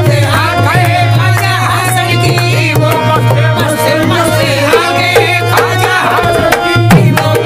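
Sufi devotional song in qawwali style: tabla drumming under a singing voice and sustained melodic accompaniment.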